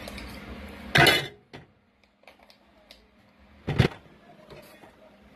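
Two sharp clatters of kitchen items being handled and set down, about a second in and again near four seconds. A steady low hum underneath stops after the first.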